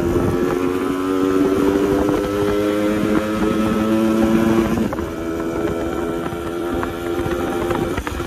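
Yamaha RX100 two-stroke single-cylinder engine, fitted with RX135 bore and carburettor and a modified muffler, pulling under way with its pitch slowly rising. It eases off a little before five seconds in and runs on more quietly.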